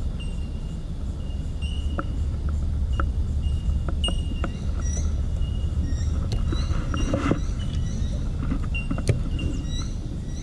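Low rumble of road traffic passing over the bridge, easing after about six seconds. Short high chirps repeat throughout, with a few sharp clicks scattered through.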